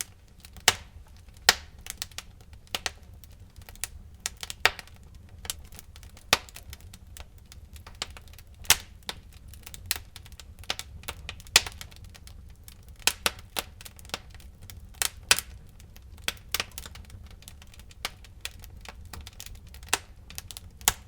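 Wood fire burning in a fireplace, crackling: irregular sharp pops and snaps, a few loud ones standing out, over a faint low rumble of the flames.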